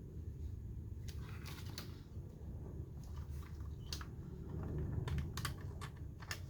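Keys of an HK 09 wireless portable keyboard being pressed, a scattered run of sharp clicks, some in quick little clusters, over a steady low hum.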